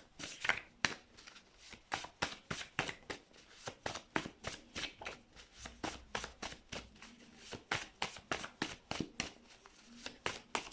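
A deck of tarot cards being shuffled by hand: a steady run of quick card clicks and slaps, about four or five a second.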